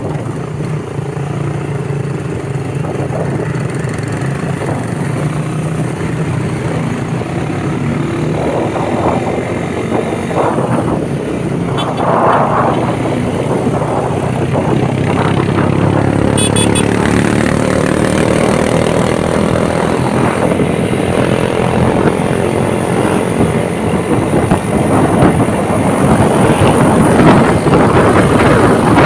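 Motorcycle engine running on the move under a rushing noise. About halfway through, its pitch climbs steadily as it speeds up, and it grows louder toward the end.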